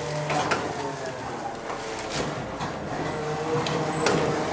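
Hydraulic packer and paddle of a MacDonald Johnston side-loader garbage truck working, heard from inside the truck's body: a steady mechanical drone with a faint whine. Woody branches crack and snap several times as the load is pushed.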